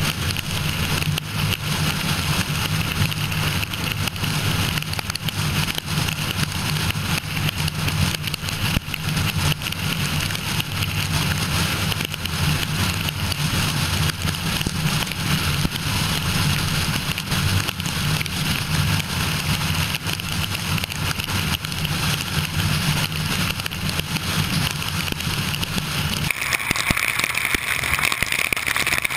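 Heavy rain falling in a thunderstorm downpour, a steady hiss, over the low steady hum of a car running. The sound changes abruptly near the end.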